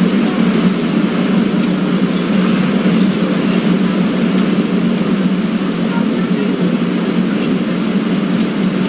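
Steady airliner cabin noise before takeoff: a constant low hum that stays even throughout, with no distinct events.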